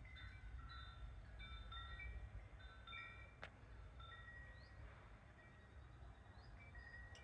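Wind chime ringing faintly, its tubes struck irregularly so that short overlapping high notes sound at random, over a low rumble. A single sharp click comes about three and a half seconds in.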